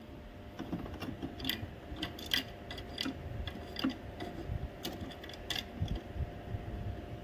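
Screwdriver turning out a screw from an Epson L3210 inkjet printer's housing: irregular small clicks and scrapes, several a second.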